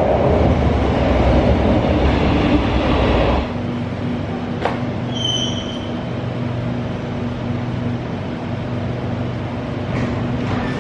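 MRT train pulling into a station behind platform screen doors: a loud rumble for about three and a half seconds, then the stopped train's steady hum. A brief high electronic tone sounds about five seconds in.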